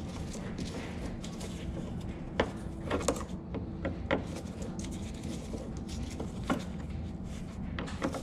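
A T30 Torx driver unscrewing a rear-light retaining bolt on a Range Rover Sport, giving a few scattered light clicks and scrapes over a steady low hum.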